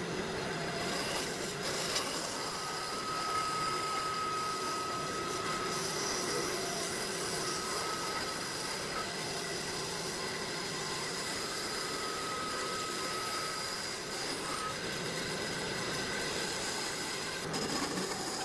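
Woodworking power tool running steadily, with a whining tone that comes and goes twice.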